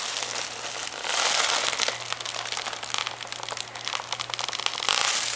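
Red foil (Mylar) helium balloon crinkling and rustling as it is squeezed and handled, with hissing while helium is breathed in from its neck.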